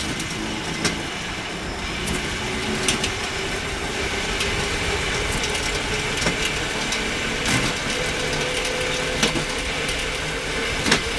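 Homemade motorised rail cart running along railway track: a steady rolling and motor noise with a faint steady whine, broken by a few short, sharp knocks.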